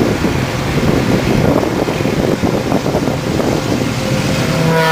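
Low rumbling vehicle noise, then near the end a freight train's diesel locomotive horn starts to sound, a chord of steady tones that keeps going.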